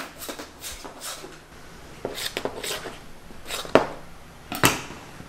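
Large kitchen knife cutting down through pastry dough and knocking on a stainless steel countertop: an irregular series of knocks, the sharpest two in the last second and a half.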